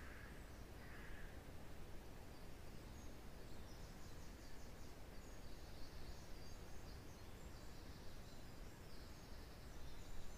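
Wind rushing through pine trees as a steady low rush, with small forest birds calling and trilling faintly and high throughout, and two short, lower, harsher calls about a second apart at the start.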